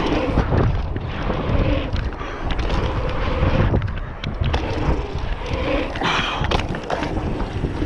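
Mountain bike rolling fast over hardpacked dirt jumps: a steady rush of tyre noise and wind on the camera microphone, with scattered knocks and rattles from the bike.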